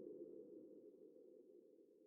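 Near silence: the last of a low electronic sci-fi hum dies away in the first moment, then nothing.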